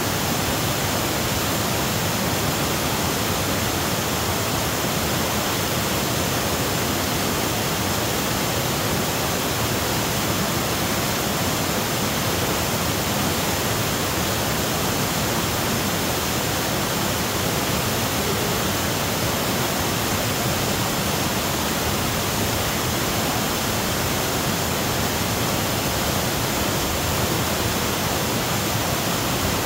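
Waterfall: white water cascading down over boulders, a steady, unbroken rush of water.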